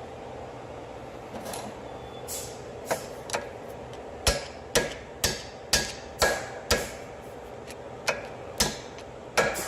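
Mallet blows knocking a tight-fitting bolt through its mount: about a dozen sharp knocks, with a steady run of about two a second in the middle.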